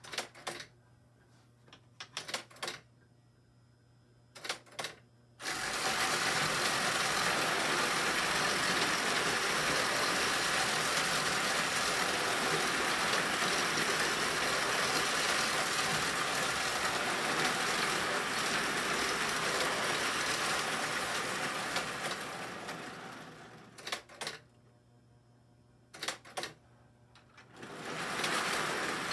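Clockwork spring motor of a Marx wind-up toy locomotive running steadily as it pulls a string of tank cars around tinplate track, after a few clicks of handling at the start. Its whir slows and fades out as the spring runs down, a few more clicks follow, and it starts up again just before the end after a nudge.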